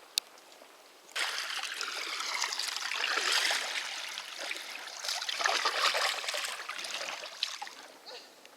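Water pouring and splashing. It starts suddenly about a second in, swells and varies, and fades near the end.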